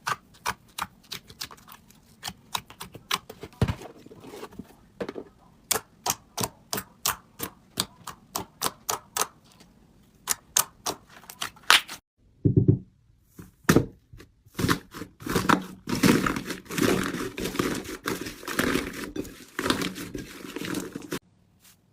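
Slime being handled: a run of sharp popping clicks, several a second, then after a short break a denser stretch of crackling and squishing pops.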